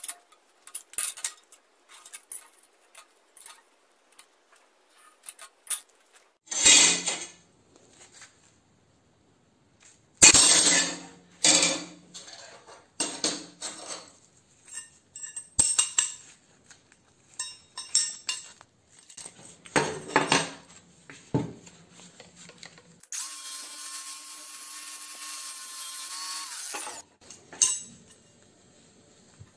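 Power tools working steel plate in a string of short bursts, with clicks and clanks of steel pieces handled on a steel table. Near the end, a power tool runs steadily at constant speed for about four seconds, then stops.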